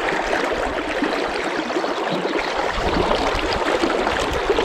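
Flowing river water, a steady, even rush.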